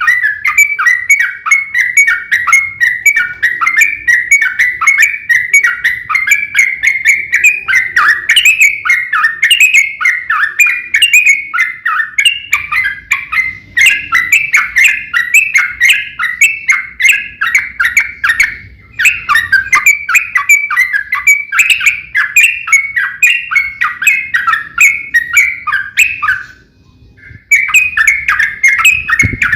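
Sooty-headed bulbul (trucukan) in full, fast chattering territorial song, a long unbroken run of rapid notes with short pauses about 14, 19 and 27 seconds in.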